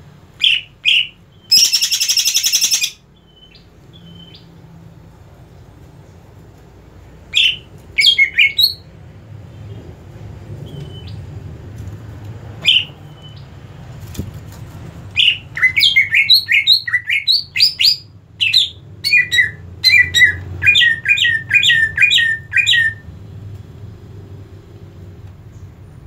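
Caged cucak ijo (green leafbird) calling: a few short chirps, then a harsh buzzing call lasting about a second. After scattered single chirps, it breaks into a fast run of chirping notes, several a second, for about eight seconds near the end.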